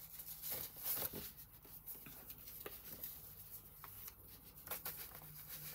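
Soft rustling of paper as loose printed sheets and journal pages are handled and turned, with a few brief light taps.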